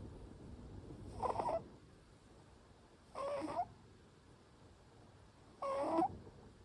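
Short-legged Munchkin cat snoring in its sleep: three short, slightly high-pitched snores, one per breath, about two seconds apart.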